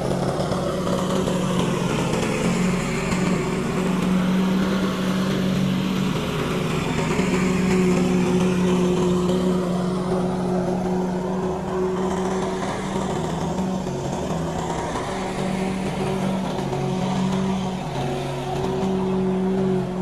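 Lawn mower engine running steadily under load, its pitch shifting slightly now and then.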